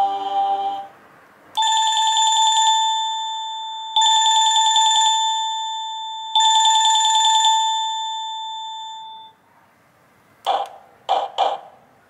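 INTENDVISION wireless doorbell chime unit playing a telephone-style ringtone: three trilling rings about two and a half seconds apart, each fading out. It starts with the last notes of a short melody, and near the end a new chime of short, sharp pulses begins.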